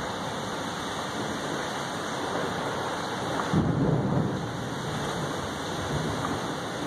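Heavy thunderstorm rain falling steadily, with a low rumble of thunder swelling up about halfway through.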